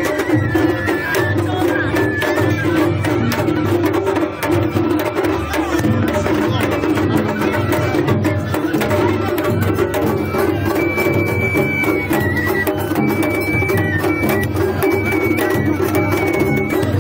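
Japanese festival hayashi music from the floats: taiko drums struck in a dense, steady rhythm, with a high bamboo flute playing held notes, more of them in the second half.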